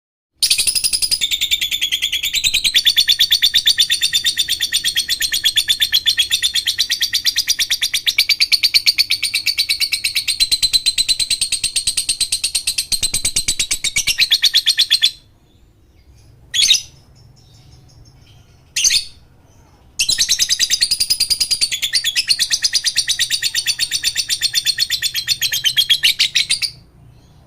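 Lovebird 'ngekek' song: a long, very rapid chattering trill lasting about fifteen seconds, two short chirps, then a second long trill of about seven seconds.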